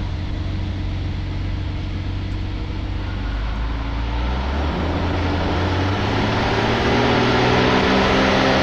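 Van's RV-10's piston engine and propeller droning at full power during the climb-out just after takeoff, heard through the cockpit intercom. Its pitch rises gradually over the second half.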